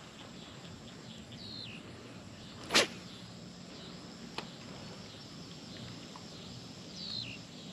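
A fishing rod whipped through the air on a cast, one sharp swish about three seconds in, followed a second and a half later by a faint click. Underneath is a steady faint insect drone.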